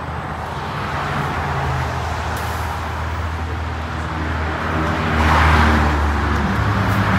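City street traffic, with a transit bus's engine running as it pulls up close by. The noise swells about five seconds in as the bus draws level.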